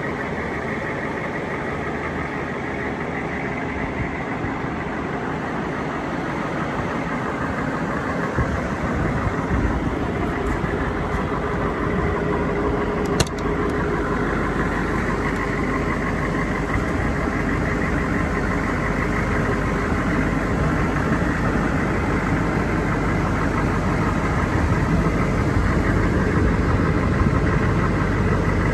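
M1167 Humvee's 6.5-litre turbo-diesel V8 idling steadily, its low rumble growing stronger about a third of the way in. A single sharp click about halfway through, as a door is opened.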